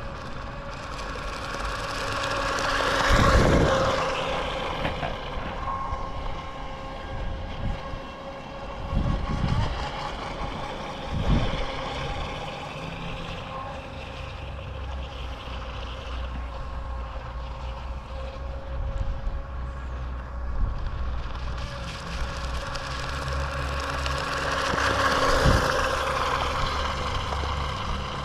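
Brushless electric motor and water-jet drive of a WLtoys WL915-A RC jet boat whining steadily as it runs across the water, swelling louder as it passes close about three seconds in and again near the end. Wind buffets the microphone now and then.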